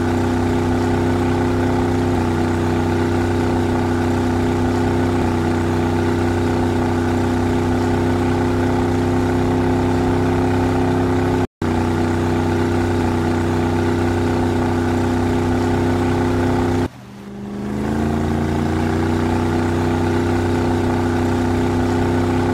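Motorboat engine running steadily at cruising speed, a constant hum. There is a brief break about halfway through, and after a dip near the end the engine pitch climbs as the boat picks up speed.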